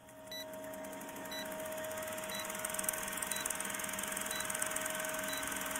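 Old-film countdown leader sound effect: a film projector running with a steady whir and crackle, and a short beep about once a second as the countdown ticks by.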